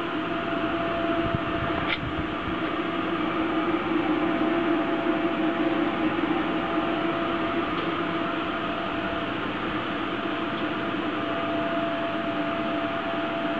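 High-frequency PVC welding machine running between welds: a steady hum with a faint constant tone, and a single click about two seconds in.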